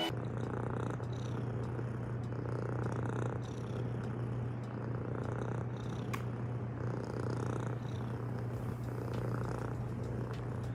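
Domestic cat purring steadily and close up, the purr swelling and easing in stretches of about a second.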